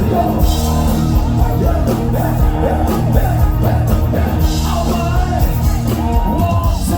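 Loud amplified live band music with a woman singing over it, a heavy, steady bass underneath.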